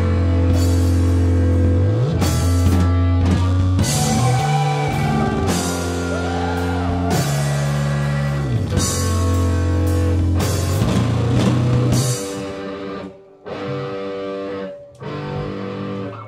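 Live rock band playing, with bass guitar, electric guitar and drum kit. About twelve seconds in, the full band drops to a quieter, thinner passage with two short breaks.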